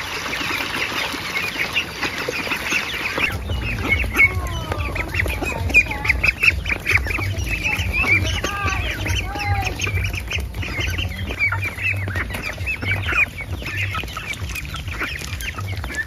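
Water pouring from a metal watering can into a steel bowl, a steady hiss for about the first three seconds. Then a flock of young white ducks calling: many short high peeps and some lower quacks, mixed with chickens clucking.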